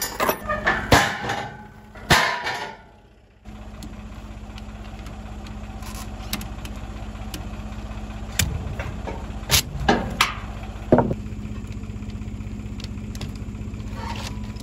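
Rusty safety chain and S-hook clanking against a trailer's steel frame, several loud metallic clanks. Then an engine idling steadily, with a handful of sharp clicks and clanks from a ratchet tie-down strap being worked and released.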